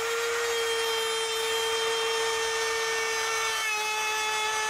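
Makita compact router running at a steady high whine as its bit cuts through a wooden board, throwing shavings. Its pitch drops slightly about three and a half seconds in as the cutting load changes.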